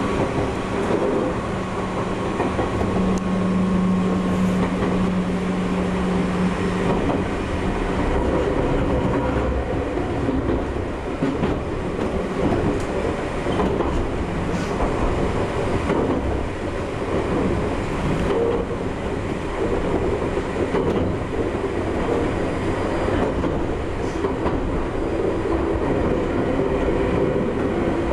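Gakunan Railway 7000-series single-car electric train running along the line, heard from the cab: steady running noise with a low hum, and the wheels clicking now and then over rail joints.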